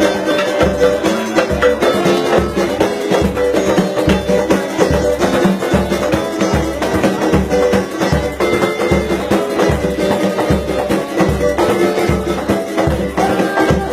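Samba music from a roda de samba: a low bass drum beating steadily about twice a second under percussion and pitched instruments.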